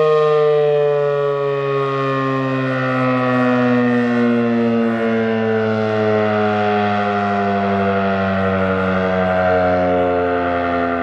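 ACA P-15 single-tone electromechanical siren winding down, its pitch falling slowly and steadily as the rotor loses speed after the test signal.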